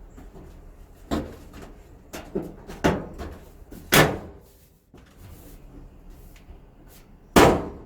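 A Samsung dryer's sheet-metal top lid being pushed and slammed down onto its locking tabs: a series of sharp metallic bangs and knocks. The loudest come about four seconds in and near the end.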